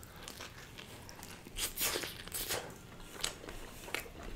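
Close-miked chewing of a mouthful of cheese burst pizza: a handful of short, irregular chewing sounds, loudest about two seconds in.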